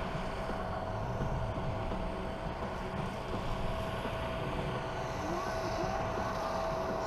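Jet engines of a distant airliner running on the ground, a steady whine over a broad roar, with wind buffeting the microphone.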